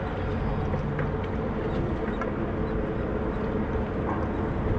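Wind buffeting the microphone on an open boat, a steady low rumble, with a faint steady engine hum underneath and a few small ticks.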